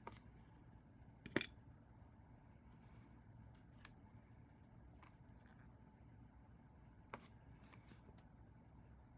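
A few scattered sharp clicks and taps of small hard parts being handled, consistent with working on a plastic toy robot. The loudest comes about a second and a half in, with two or three more near the end, over near silence.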